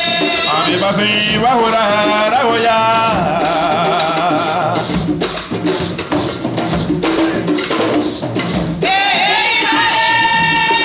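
Live Garifuna music: hand drums and rattles with singing. The singing falls away in the middle, leaving the drums and rattles in a steady beat, and a long held sung note comes back near the end.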